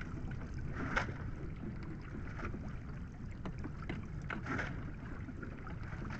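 Wind rumbling on the microphone, with water splashing and dripping as a line of wet cottonii seaweed is hauled out of the sea over the side of a small boat. The splashes are loudest about a second in and again around four and a half seconds.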